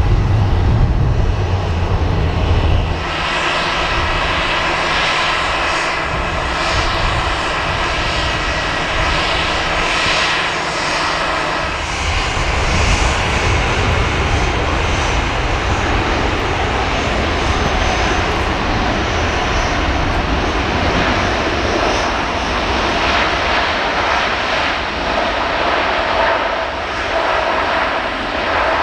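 Jet airliner engines running close by: first an Airbus A320 with a steady whine over a rumble, then, about twelve seconds in, an abrupt change to the broad, even jet noise of an Airbus A350's Rolls-Royce Trent XWB engines.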